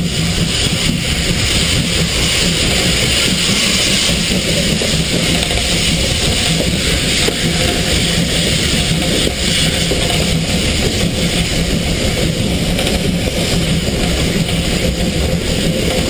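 Steam locomotive running with steam hissing loudly and steadily from low on its side at the cylinders, over a constant low rumble from the engine, heard close up from the locomotive's flank.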